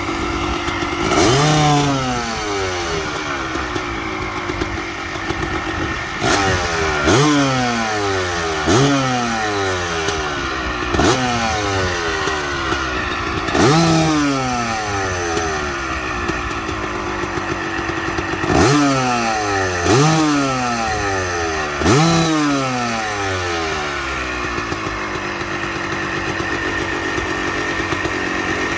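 Kawasaki KX250 single-cylinder two-stroke engine warming up after a cold start: it idles and is blipped about nine times, each rev rising sharply and falling back to idle.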